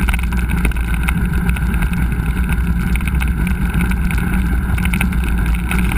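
Wind buffeting a GoPro microphone while riding a mountain bike, a steady low rumble with many small rattles and clicks from the bike on the trail.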